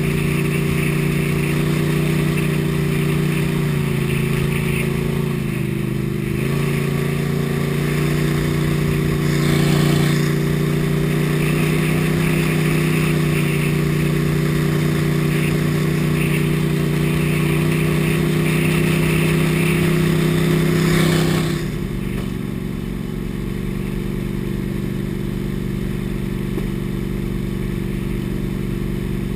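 A small shallow-water boat's engine running at steady speed under way. Its pitch dips briefly twice in the first several seconds. About three-quarters of the way through it is throttled back to a lower, quieter pitch.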